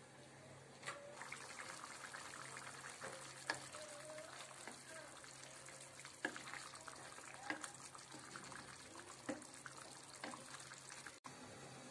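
Chicken simmering in a thick tomato gravy in a frying pan, bubbling and sizzling faintly, while a wooden spoon stirs it and knocks against the pan several times.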